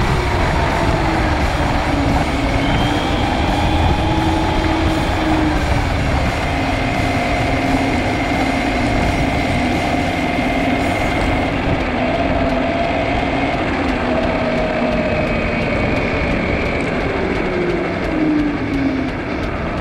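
Traxxas Rustler 4x4 VXL RC truck driving fast on asphalt: the brushless motor and drivetrain whine, the pitch rising and falling with speed, over loud tyre and road noise.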